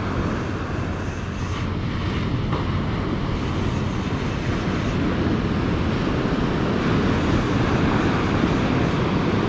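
Wind buffeting the microphone over breaking surf: a steady rushing noise that gets a little louder in the second half.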